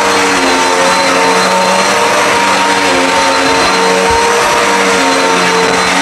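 Dirt Devil Endura Max upright vacuum cleaner running loudly as it is pushed over carpet: a steady high motor whine over a rushing of air, with lower tones that shift up and down in pitch every second or so as the load on the machine changes.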